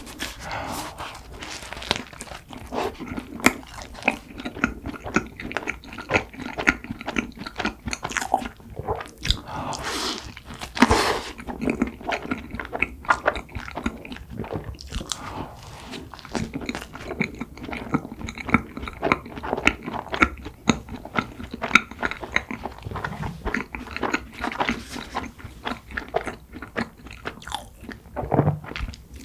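Close-miked eating of cream-filled red bean buns (pat-bbang): biting into the soft bread and chewing, with many small wet mouth clicks throughout.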